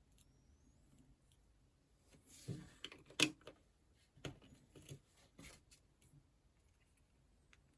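Quiet handling of small plastic building-block pieces: a brief rustle, then a handful of sharp little clicks and taps spaced about half a second to a second apart.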